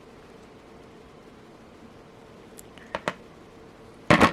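Small metal clicks from jewellery pliers working a jump ring: two light ticks about three seconds in, then a louder, sharp clack near the end.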